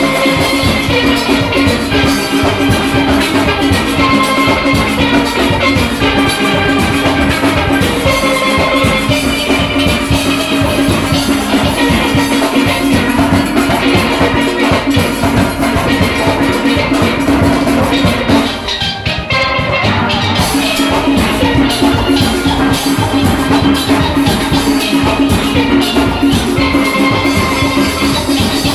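A full steel orchestra playing: many steel pans ringing out a fast, busy tune over a steady drum rhythm. The band drops out briefly for about two seconds roughly two-thirds of the way through, then comes back in full.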